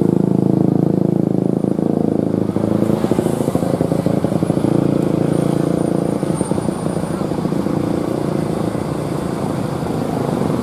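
Engines of slow, crawling road traffic running close by, with a minibus, cars and motorcycles passing, making a loud, steady engine drone.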